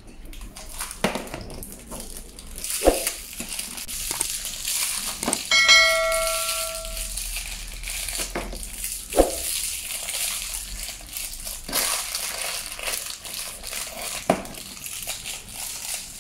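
Crinkly toy wrappers being crumpled and torn open by hand, with scattered sharp crackles. About five and a half seconds in, a short bell-like chime rings for about a second.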